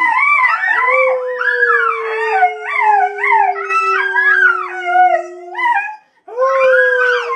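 Dogs howling together with a small child: one long, slowly falling howl runs under a chorus of higher, wavering howls and yips. All of it breaks off briefly about six seconds in and then starts up again.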